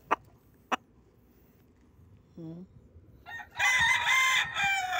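A rooster crows once, starting about three and a half seconds in: a loud call that holds steady and then drops in pitch at the end. Before it there are only a couple of faint clicks and a short low call.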